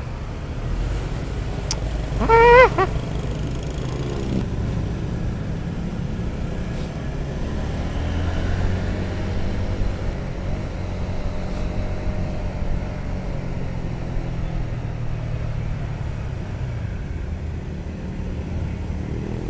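Motorcycle engine and road noise picked up by the rider's camera: a steady low drone, with the engine note slowly rising and falling as the bike rides through traffic. About two seconds in, a brief wavering pitched sound stands out as the loudest moment.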